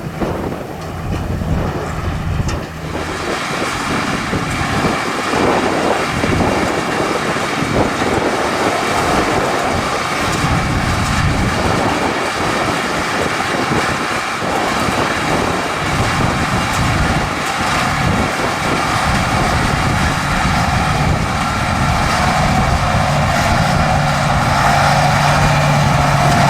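Farm machinery running in the hay field: a tractor engine together with the clatter of the hay-handling equipment. It gets louder about three seconds in, and a steady engine drone comes up near the end.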